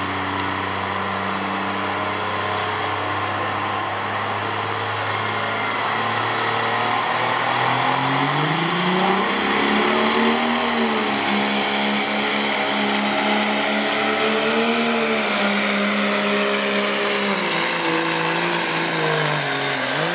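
Dodge Ram's Cummins inline-six turbodiesel pulling a weight-transfer sled at full load. The revs climb about a third of the way in and hold high, wavering a little, then drop near the end. Over the first half a high turbocharger whistle rises in pitch.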